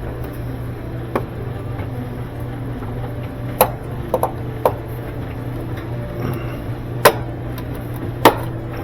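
Sharp knocks and clanks of tools and parts being handled during appliance repair, about six irregularly spaced strokes, the loudest two near the end, over a steady low hum.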